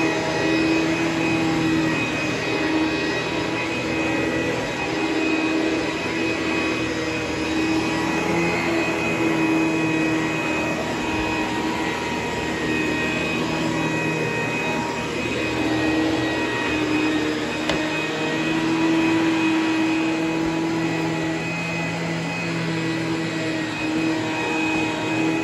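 ProTeam commercial upright vacuum running steadily while being pushed over carpet: a continuous motor hum and whine with a rush of airflow. The hum swells and fades slightly as it moves.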